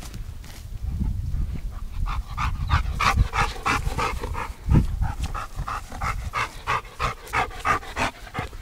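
Black Labrador retriever panting rapidly and steadily, about three to four breaths a second, starting about two seconds in.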